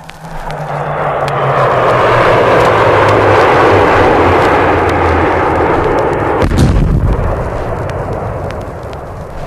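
Loud roar of a military jet aircraft, its low engine tone falling slowly in pitch as it passes, then a heavy explosion about six and a half seconds in whose deep rumble slowly fades.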